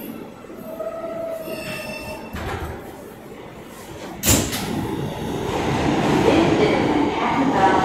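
Subway train coming to a stop in a station, its wheels squealing with thin high tones. About four seconds in there is a sharp bang, followed by a louder, steady rushing noise.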